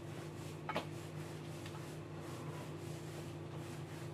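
Hands rounding and pressing soft yeast dough on a granite countertop, quiet handling sounds with one sharp tap against the counter about a second in, over a steady low hum.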